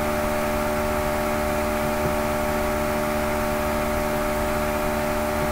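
Steady background hum and hiss with several fixed tones, unchanging throughout: the poor-quality noise of the recording itself, with no other sound over it.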